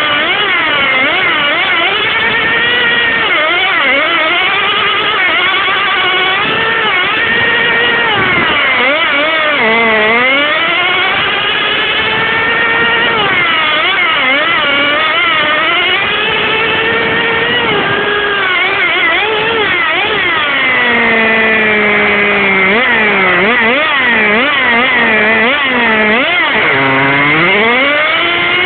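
Radio-controlled Toyota Corolla rally car's motor, heard close from a camera mounted on the car, its pitch rising and falling again and again as the throttle is worked; twice, around 21 s in and near the end, it drops to a low note.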